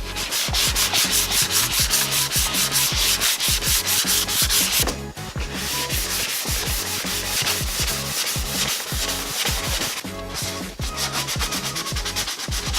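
150-grit sandpaper block rubbed back and forth by hand over the quad's plastic fender panels, in quick, even strokes. The strokes ease off about five seconds in and pick up strongly again near the end.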